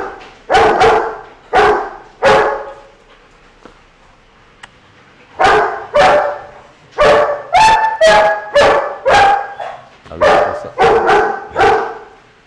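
Young German Shepherd barking: about four barks, a pause of about three seconds, then a quicker run of about a dozen barks, a few of them higher-pitched yips, as it is excited by a ball.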